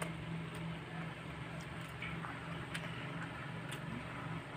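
Quiet eating sounds: a few faint clicks, about a second apart, from chewing and utensils on plates, over a steady low hum.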